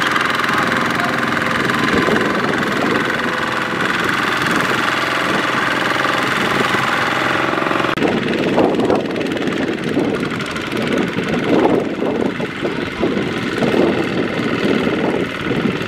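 Kubota RT140 power tiller's single-cylinder diesel engine running under load as the tiller hauls a loaded trailer through sticky mud. About halfway through, the sound changes abruptly to rougher, more uneven running.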